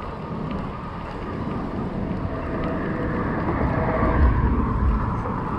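Wind buffeting the microphone in gusts, heaviest about four to five seconds in, with a faint engine hum that swells through the middle.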